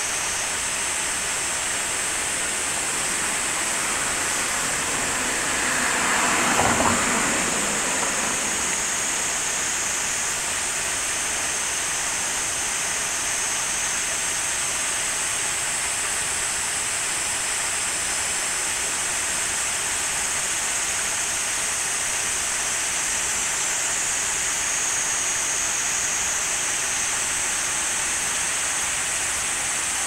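Water pouring over a small two-step river weir: a steady rushing splash. A brief louder swell rises and fades about six to eight seconds in.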